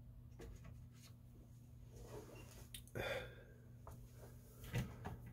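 Faint handling sounds on a workbench: a few small clicks and a brief rustle about three seconds in as a hand moves over the model parts, over a low steady hum.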